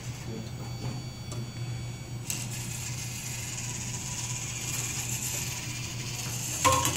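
VEX motors driving a plastic tank-tread conveyor belt and its gears, running with a steady low hum and a light mechanical rattle that grows fuller a little over two seconds in. A sharp knock comes near the end.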